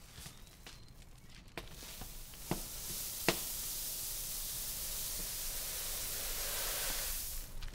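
Dry grain pouring from a tilted woven basket into a jute sack: a steady hissing rush that builds from about two seconds in and stops abruptly near the end. It is preceded by a few sharp clicks.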